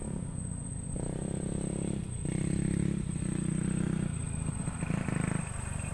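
A small engine running, its note shifting up and down in steps every second or so and dropping back near the end.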